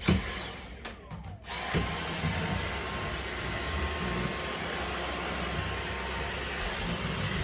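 A click, then about a second and a half in a small electric motor starts up and runs steadily with a whirring hiss and a thin high whine.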